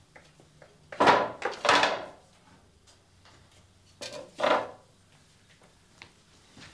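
Wooden furniture being handled: two pairs of short, scraping knocks, like a drawer or cupboard worked open and shut. The first pair comes about a second in, the second about four seconds in.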